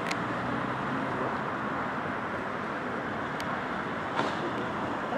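Steady street traffic noise from cars passing at a distance, with a few short faint clicks.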